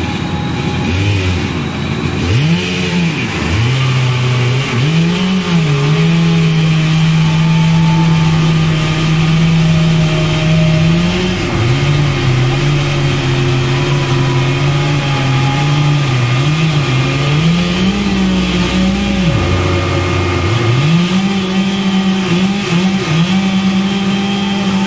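An engine revving up and down in quick throttle blips, then held at high revs for long stretches. Near the end it drops briefly to a low idle before climbing again.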